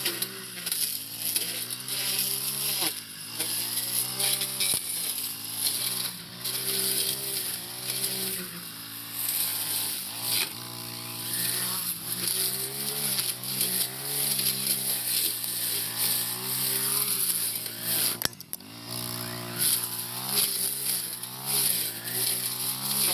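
Four-stroke brush cutter engine running under load, its pitch rising and falling again and again as the throttle is worked while cutting tall bush grass.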